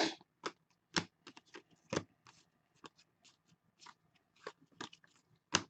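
2015 Donruss soccer trading cards being flicked through in a hand-held stack: about ten short, soft clicks and flicks of card stock, scattered unevenly.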